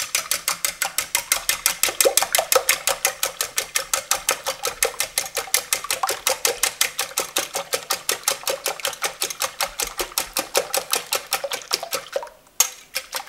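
Wire whisk beating raw eggs in a glass bowl: a fast, even rhythm of about six to seven clicking strokes a second as the wires strike the glass. The whisking pauses briefly near the end with a single knock, then starts again.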